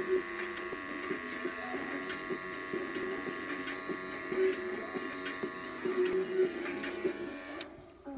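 Electric hair trimmer buzzing steadily while shaping up the hairline, cutting off shortly before the end.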